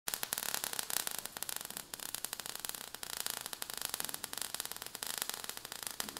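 Crackling sound effect of burning sparks: a dense, irregular run of small crackles, mostly high-pitched and fairly faint.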